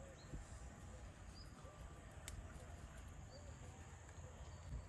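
Faint outdoor ambience with soft, short bird calls repeating every second or so over a low steady hum, and a single sharp click about halfway through.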